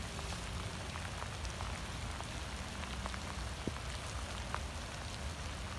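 Steady rain falling, with scattered ticks of individual drops hitting.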